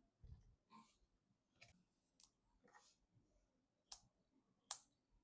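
Faint handling of PC parts with a few short clicks, two sharp ones near the end.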